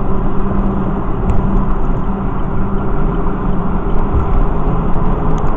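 Steady road and engine noise of a car cruising at highway speed, heard inside the cabin, with a low steady hum under the tyre roar.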